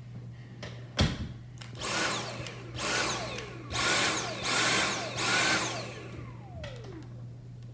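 Vacuum cleaner motor switched on and off in five short bursts behind a closed door, each burst rising then falling in pitch, the last one winding down in a long falling whine. A single thump comes about a second in, before the bursts.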